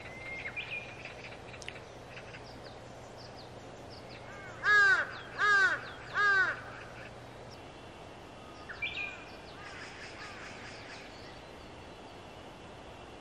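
A crow cawing three times in quick succession about five seconds in, each caw a short arched call. Fainter chirps of small birds come before and after.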